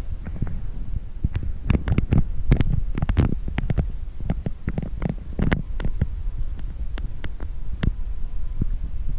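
Wind buffeting the camera microphone: a loud, low rumble broken by frequent irregular pops.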